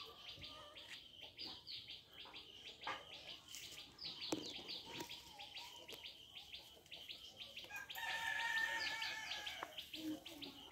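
Small birds chirping in fast runs of quick, high, repeated notes, with a rooster crowing once for about a second and a half near the end.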